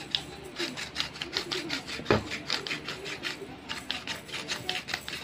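Stainless steel pepper grinder being twisted over a bowl, a rapid run of grinding clicks at about five a second, with one knock about two seconds in.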